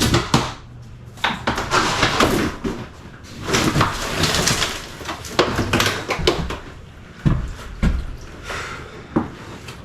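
Irregular hand-hammer blows and scraping, clattering demolition debris, with a sharp knock about once a second in the second half.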